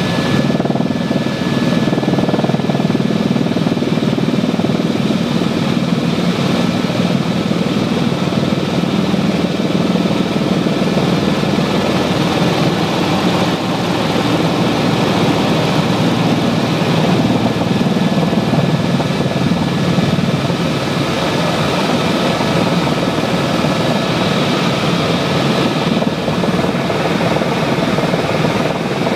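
Helicopter turbine and rotor noise heard from inside the cabin, loud and steady, with a thin steady high whine over it, as the helicopter descends to land.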